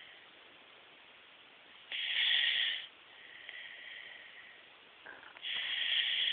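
A sleeping person snoring: two loud snores about three and a half seconds apart, each about a second long, with quieter breathing between them. The sound is thin, as recorded through a cellphone microphone.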